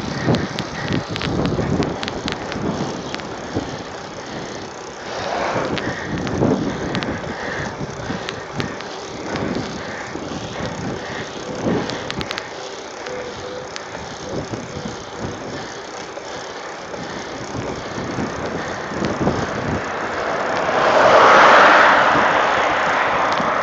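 Mountain bike rolling on asphalt, with steady wind and tyre noise and scattered clicks and rattles from the bike. Near the end a car passes close by, its noise swelling and then fading.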